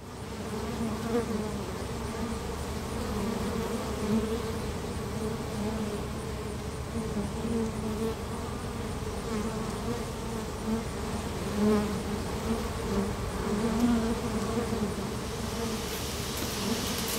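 A crowd of honey bees buzzing at the front of their hive: a low, continuous hum that swells and fades now and then.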